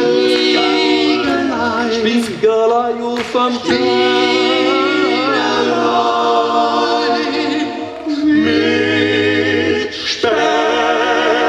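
Male a cappella vocal group singing in close harmony without instruments, a bass voice holding low notes beneath sustained chords. Phrases break off briefly about four, eight and ten seconds in.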